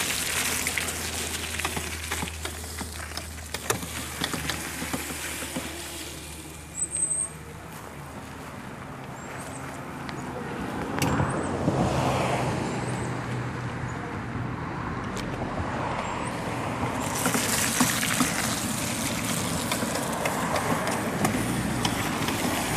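Razor MX350 and MX650 electric dirt bikes riding through mud and puddles, with their motors and chain drives whirring and tyre noise in the wet dirt. It gets louder about halfway through and again near the end as the bikes come close.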